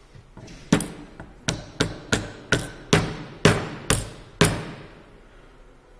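A hammer strikes the metal housing of a brushless electric-vehicle motor about nine times over three and a half seconds. Each blow is a sharp knock with a short ring, knocking the casing apart during teardown.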